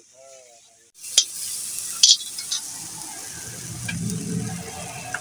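Food sizzling in a metal wok, stirred with a metal spoon that scrapes and clinks against the pan. The sizzling starts about a second in, with the sharpest clinks at about one and two seconds.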